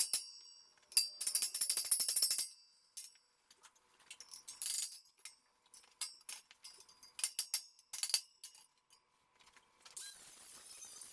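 Steel hammer striking the Kubota U10 excavator's steel stick, metal-on-metal clanks with bright ringing: a quick run of blows about a second in, then scattered knocks and clinks.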